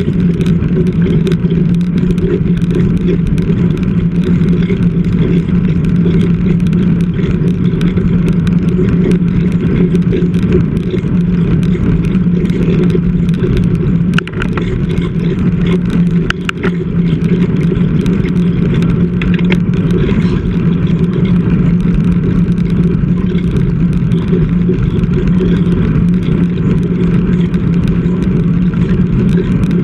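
Steady wind rush and road noise while riding a road bike at speed, picked up by a GoPro mounted on the bike, with a constant low hum.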